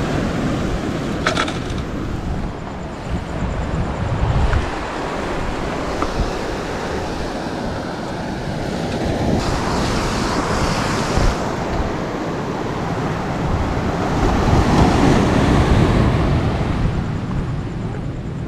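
Surf washing against a rocky shoreline, with wind buffeting the microphone; the wash swells louder toward the end.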